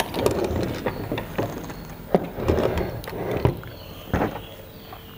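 A SUN 2000 inverter power board, with its heatsink and wiring attached, being turned over and set down on a wooden table. There are a few sharp knocks and clatter between stretches of handling rustle, and it goes quieter near the end.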